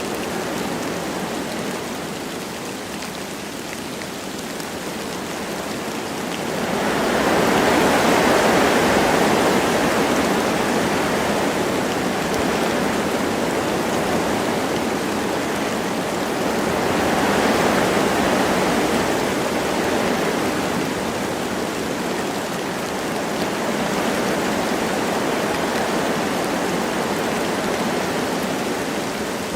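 Wind blowing through forest trees with light rain: a steady rushing noise that swells in two gusts, one about a quarter of the way in and another past the middle.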